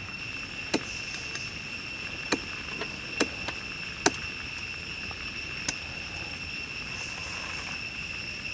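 Steady high-pitched drone of crickets or other insects, broken by about five sharp knocks in the first six seconds: a knife blade striking the wooden branch as raw chicken feet are trimmed against it.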